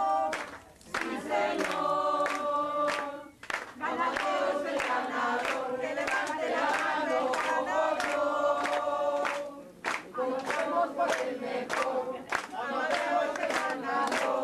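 Many voices singing together in held notes, phrase after phrase, with brief pauses between phrases.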